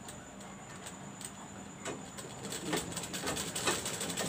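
Sewing machine stitching fabric: a fast, even run of needle-and-feed clicks, about four or five a second, which starts about two seconds in and grows louder.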